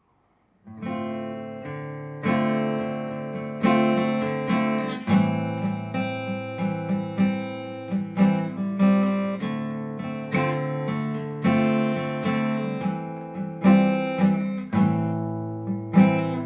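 Acoustic guitar strumming the opening chords of a song. It starts after a brief silence, and its chords ring on under sharp strum accents that come every second or so.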